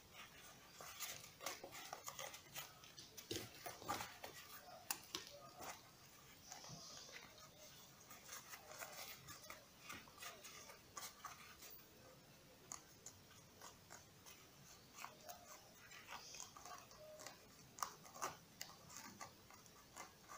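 Faint rustling and light clicks of hands handling and pressing a round patch onto the fabric of a scuba BCD, busiest in the first few seconds and again near the end.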